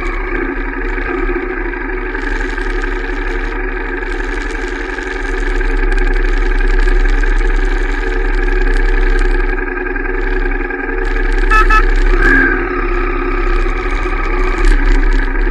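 Royal Enfield Shotgun 650's parallel-twin engine and exhaust running under way, its level swelling and easing with the throttle. A brief higher tone cuts in about twelve seconds in.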